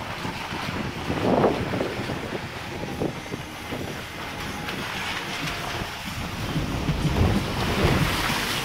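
Cabin noise of a vehicle driving slowly over a rough, rocky gravel road: engine running and tyres on loose stones, with the body jolting and wind buffeting the microphone.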